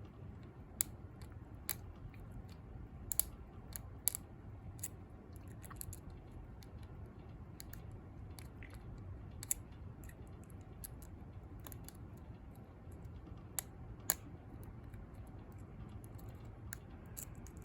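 Small, irregular clicks and scrapes of a thin short-hook pick and tension wrench working the pins inside a Master Lock No. 1 padlock, over a faint steady low hum.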